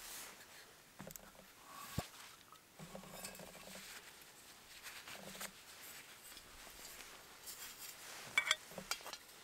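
Quiet handling of camping cook kit: a gas canister being picked up and set down, and a small fabric pouch being rustled and opened, with scattered small clicks and a sharp tick about two seconds in. Near the end there are a few light metallic clinks.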